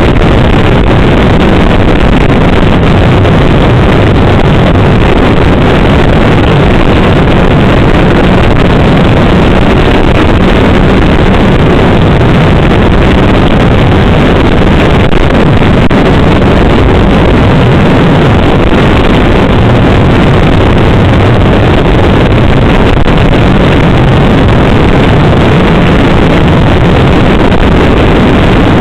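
Snowmobile engine running steadily at speed, mixed with wind rushing over the microphone; loud and unbroken throughout.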